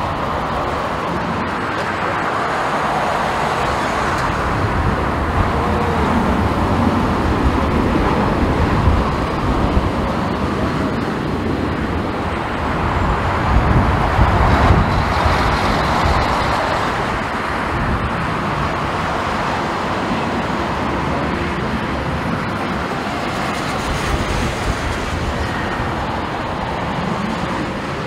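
Jet engines of a McDonnell Douglas MD-11F freighter at go-around climb power, a steady loud rumble as the aircraft climbs away. Gusty strong wind buffets the microphone throughout.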